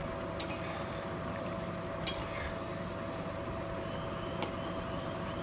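Mustard gravy with rohu fish boiling steadily in a metal kadai on a gas flame, with a faint steady hum underneath. A metal spatula clicks against the pan three times, the loudest about two seconds in.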